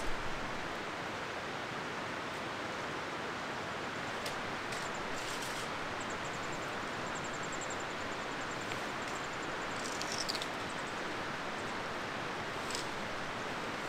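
Steady rushing of a mountain stream's flowing water. Over it come a faint high trill for a few seconds midway and a short falling chirp about ten seconds in, from small birds.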